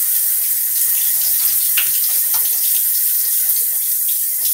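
Tap running steadily into a bathroom sink, with scattered splashes as water is scooped up to rinse the face after a shaving pass.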